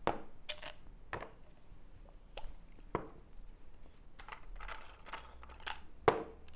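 Hard plastic parts of a poly pipe compression fitting clicking and knocking as the fitting is unscrewed and taken apart and its nut and other pieces are set down on a table. The knocks come irregularly, about ten of them, the loudest about six seconds in.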